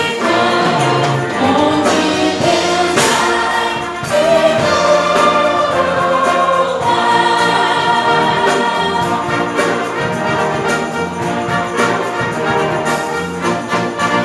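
Choir singing a Christian hymn with a band accompanying, held notes over a steady beat.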